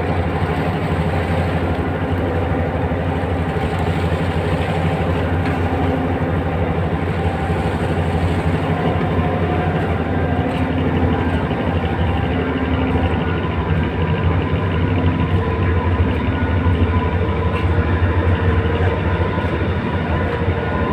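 A tugboat's diesel engine runs steadily under load while towing a barge, a constant low drone with even overtones that holds throughout.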